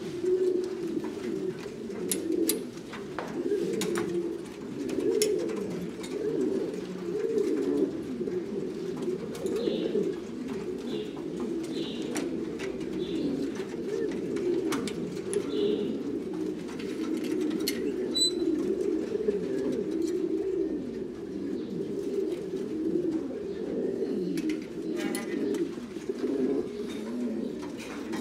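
Buchon gaditano pouter pigeons cooing, many coos overlapping without a break, with a few light sharp clicks here and there.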